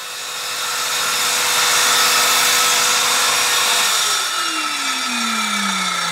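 Circular saw with a diamond blade grinding into a concrete slab, then let off about four seconds in, its motor winding down with a falling pitch.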